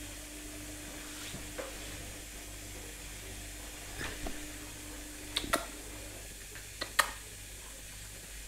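Maltese puppies playing tug with a leash on a ceramic tile floor: a handful of sharp clicks and taps, the loudest about seven seconds in, over a steady faint hiss and a low hum that stops about six seconds in.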